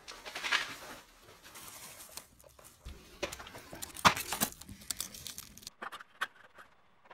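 Crinkling and rustling of foil-faced insulation being handled, with scattered light clicks and taps, loudest about four seconds in.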